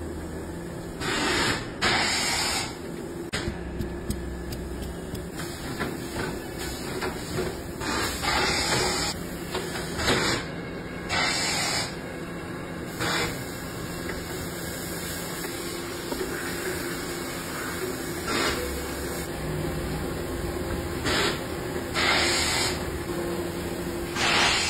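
Tyre retreading machine running with a steady hum, broken by about ten short hissing bursts scattered through the stretch.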